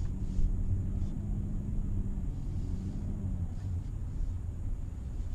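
Low rumble inside the cabin of a 2018 Genesis G80 Sport rolling slowly, with a steady low hum that fades out about three and a half seconds in.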